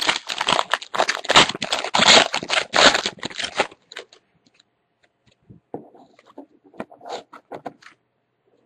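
Sealed foil trading-card pack being opened by hand, the wrapper crinkling and rustling loudly for about three and a half seconds. Then quieter scraping and light ticks as the cards are slid out and handled.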